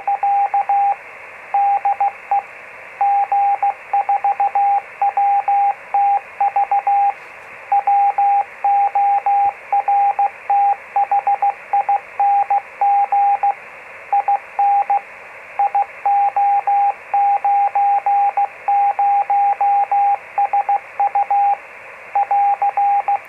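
Morse code from a 50 mW radiosonde transmitter converted into a 70 cm amateur beacon, heard through an FT-817 receiver as a single steady tone keyed in dots and dashes over constant receiver hiss. It sends its identification, CT DE G4WTV IO90SU AR, with a short pause about seven seconds in.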